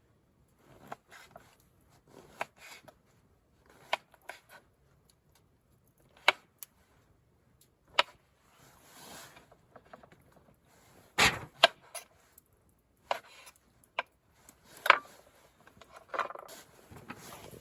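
Irregular clicks, taps and short scrapes of camp gear being handled, with a louder knock about eleven seconds in.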